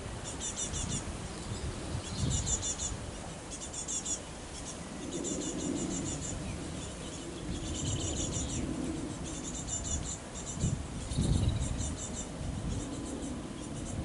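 Small songbirds singing in the surrounding bushes: short, high-pitched phrases of quick notes, repeated every second or two, over a low rumble.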